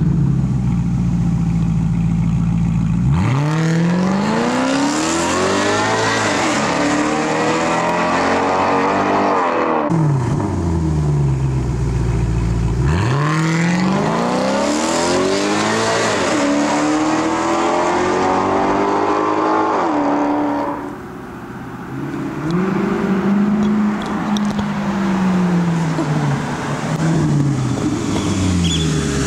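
Maserati GranTurismo S's 4.7-litre V8 idling, then pulling away hard about three seconds in, revs climbing through several upshifts before easing off. A second hard sprint follows, and near the end the engine comes back at moderate revs.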